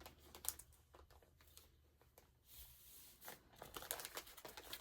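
Faint rustling and crinkling of a plastic comic-book bag and paper being handled, with a sharp click about half a second in and busier rustling near the end.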